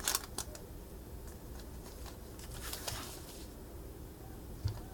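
A baseball card pack's wrapper being torn open and the cards inside handled. It gives a few short crinkling, rustling bursts: two at the start, a longer one midway and one near the end.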